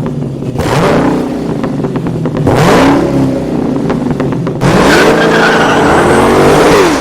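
Car engine at full throttle, accelerating hard, its pitch climbing and dropping back several times.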